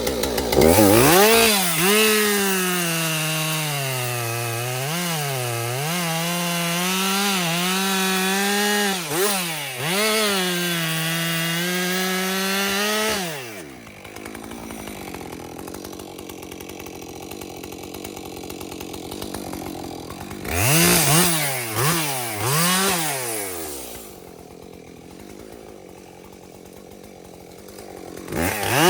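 Two-stroke chainsaw running at full throttle for about thirteen seconds, its pitch dipping and recovering as it bogs down in the pine trunk. It then drops to idle, is revved in a few short blips, idles again, and revs up once more near the end.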